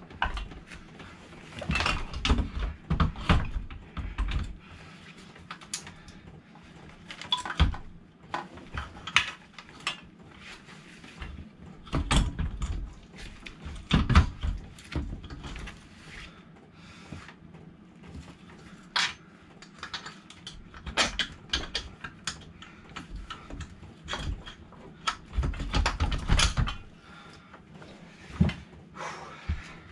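Irregular metallic clicks, clinks and knocks of engine mounting bolts and hand tools being handled while a Honda CBR125R engine is fitted into its frame, with heavier thumps now and then.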